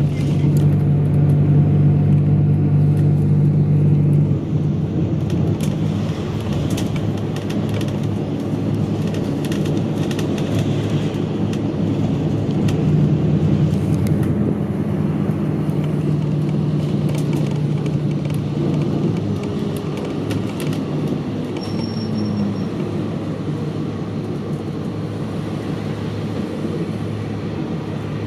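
Route bus driving, heard from inside the passenger cabin: a steady low engine and road drone that eases off about four seconds in and builds again around thirteen seconds, with scattered light rattles and clicks.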